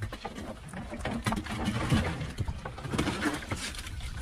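Irregular wet slaps and knocks: fish flapping on the wet floor of a small boat and being scooped out of the fish hold with a landing net.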